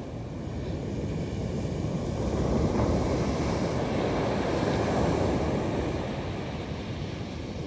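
North Sea surf breaking and washing up the beach, a steady rush of waves that swells about three seconds in and eases off again, with wind on the microphone.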